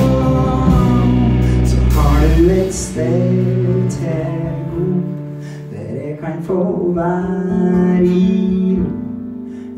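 Live band playing: strummed acoustic guitar with electric guitars, drums and a male voice singing. The heavy low end drops away about three seconds in and the playing grows softer.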